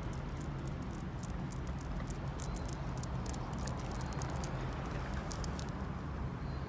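Corgi's claws tapping on hard ground as it walks, a quick irregular clicking over a steady low rumble.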